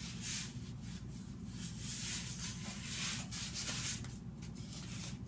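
Rustling and rubbing as a lace wig's hair and lace are handled, in a string of soft scratchy swipes over a low steady hum.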